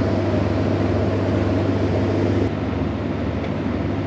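A pushboat's engine running steadily as it shoves a work barge: a low, even drone with a strong hum, which drops a little, suddenly, about two and a half seconds in.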